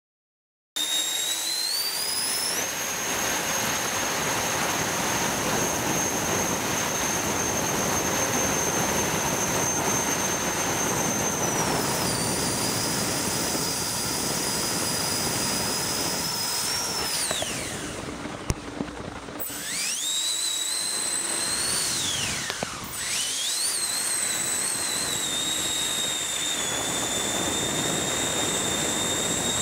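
Four 90 mm electric ducted fans of a 12,000-watt RC airboat running at high power: a loud rushing whine with a high steady tone. The sound cuts in just under a second in, its pitch eases down slightly about 12 s in, and twice, around 17 s and 22 s, the throttle is backed off so the whine falls away and then climbs back up.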